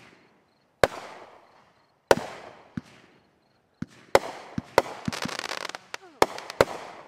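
Aerial fireworks shells bursting: a string of sharp booms, each followed by a long fading echo, with a dense crackling spell about five seconds in.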